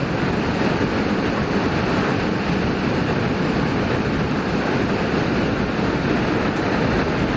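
Steady wind rush and road noise of a motorcycle being ridden, heard through a helmet-mounted microphone, with no distinct engine note standing out.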